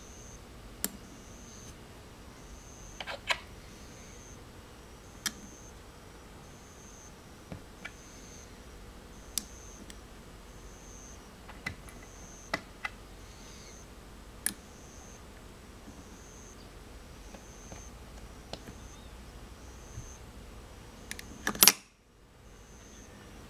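Scattered sharp little clicks as small magnetic toy figures snap onto the magnet and onto each other. The clicks come singly or in pairs every second or few, with the loudest cluster near the end followed by an abrupt drop to silence.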